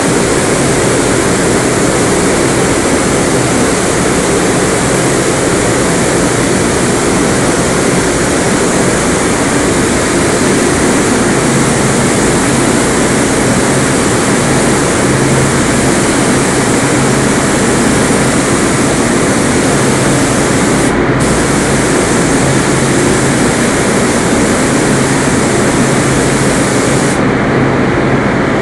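Gravity-feed compressed-air paint spray gun hissing steadily while spraying paint, over a steady low drone. The hiss breaks off briefly about two-thirds of the way through and stops again near the end as the trigger is let go.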